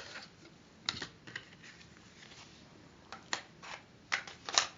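Light, irregular clicks and taps from handling a View-Master viewer and its cardboard picture reel, a few scattered clicks with a quick cluster near the end.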